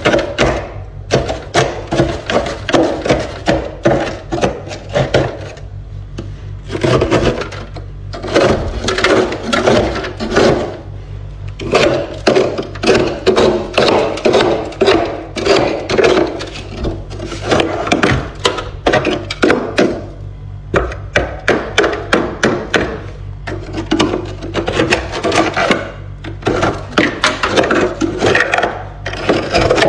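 Frost being scraped off the inside of a freezer with a hand-held scraper: runs of quick crunching, rasping strokes through soft built-up ice, with short pauses between runs.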